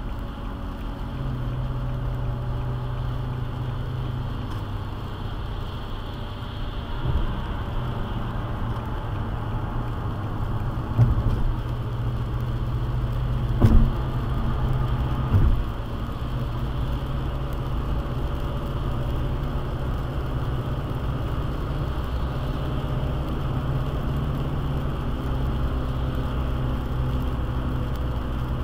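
Car driving on a rain-wet highway, heard from inside the cabin: steady tyre hiss and road noise with a low engine hum, and a few short thumps through the middle.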